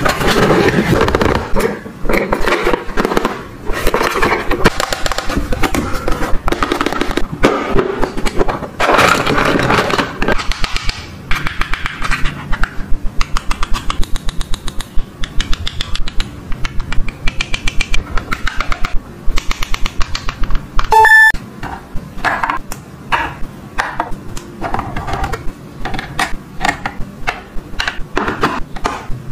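A plastic toy kitchen set being handled. For the first ten seconds or so the plastic case slides and scrapes against its cardboard box. Then comes a long run of sharp clicks and taps as small plastic pieces are picked up and set down, with a short beep about 21 seconds in.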